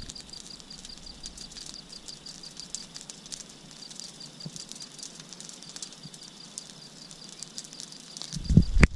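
Outdoor ambience with a high, steady chirping that repeats several times a second, over scattered light taps and clicks. A brief louder rustle comes near the end.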